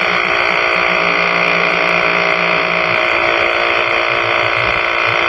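Impact wrench hammering steadily on a tight lug nut for several seconds before stopping abruptly. The nut had been fastened very tight.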